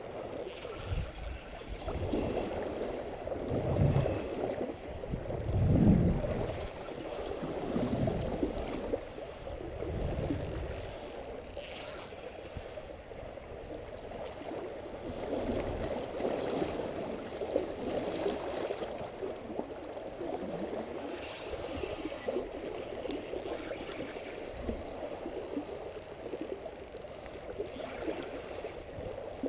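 Creek water rushing steadily through a fast current, with a few low rumbling swells in the first ten seconds or so.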